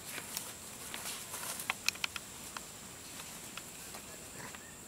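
Long-tailed macaque handling a plastic food bag in dry leaf litter: scattered soft crackles and rustles, with a few sharper crinkles about two seconds in.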